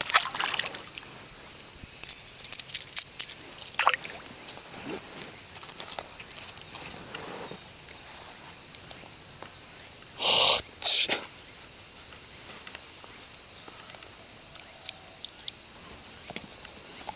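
A steady, high-pitched chorus of insects. A few faint clicks come in the first few seconds, and two short louder sounds come about ten seconds in.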